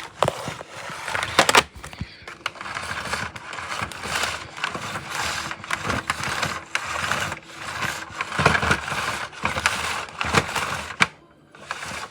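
Plastic clicks, knocks and scraping from a Hoover WindTunnel Rewind upright vacuum cleaner being handled and worked over, in an irregular run of sharp clicks with rubbing noise between them.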